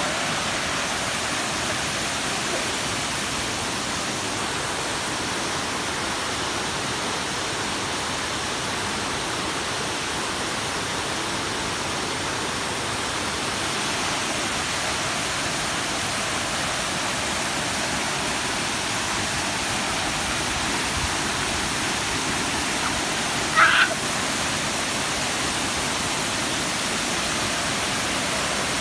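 Waterfall rushing: a steady, unbroken hiss of falling water. A brief, sharp high-pitched sound cuts in once about three-quarters of the way through.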